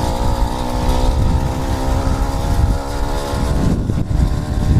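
80cc motorized bicycle engine running steadily under way, with heavy wind rumble on the microphone. The engine note fades a little before the end.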